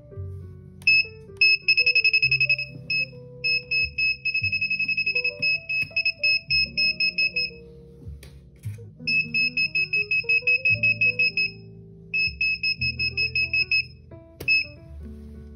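Rapid trains of high electronic beeps in several runs separated by short pauses, over background music.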